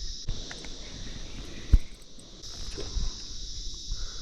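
A steady, high-pitched chorus of insects that breaks off shortly after the start and resumes about two and a half seconds in. Low thumps and one sharp knock, the loudest sound, come just before the chorus returns.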